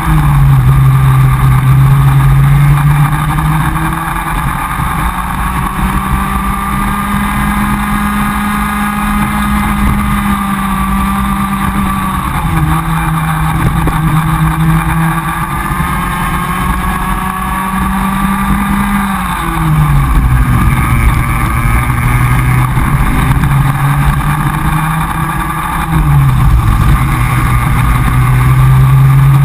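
Onboard sound of a Comer cadet kart's two-stroke engine at race speed. The engine note drops sharply when the driver lifts for corners, near the start, about two-thirds of the way in and near the end, and climbs steadily again as the kart accelerates out.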